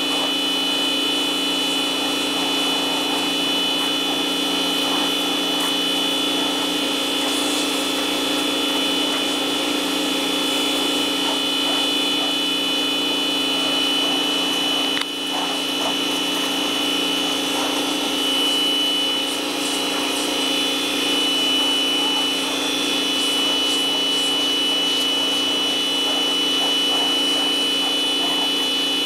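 Snap-On 1650 PSI electric pressure washer running steadily under load, its motor and pump giving a constant hum with a high whine, over the hiss of the water jet spraying the wooden fence boards.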